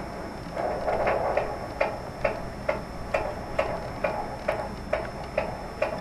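Fetal doppler speaker playing a baby's heartbeat: a fast, regular pulsing of a little over two beats a second, a strong signal at around 136 beats a minute. A short swell of whooshing noise comes before the beat settles in, over a faint steady high whine.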